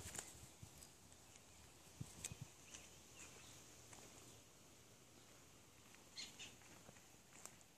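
Very faint footsteps and small crackles of twigs and leaves on a woodland path, with two short high chirps about six seconds in.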